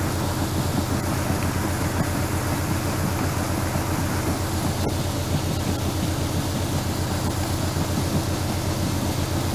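Harvest machinery running steadily: an even low mechanical hum with a fine rapid pulse underneath, unchanging throughout.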